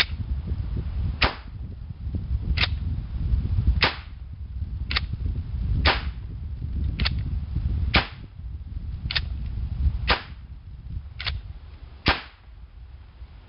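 3D-printed plastic Zig Zag revolver firing blanks: eleven sharp shots in a steady string, roughly one a second, over a low background rumble.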